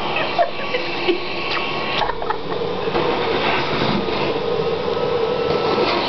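Vacuum cleaner running steadily, with a few short clicks and knocks as the hose and nozzle are moved about.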